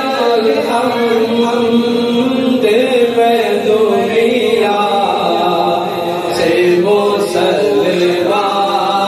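A man chanting a naat (Islamic devotional poem), drawing out long notes that glide between pitches.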